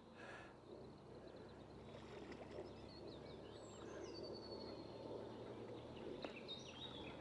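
Faint splashing of a small hooked ghost carp thrashing at the water's surface. A few faint bird calls come in the middle, one gliding downward.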